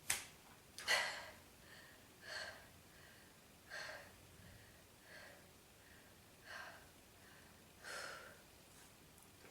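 A woman's short, sharp sniffs and breaths in through the nose during a sneezing fit, about six in all, the strongest about a second in.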